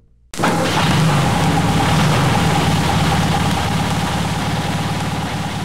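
Car engine sound effect: an engine comes on suddenly and runs at a steady pitch as a car drives off, easing slightly near the end.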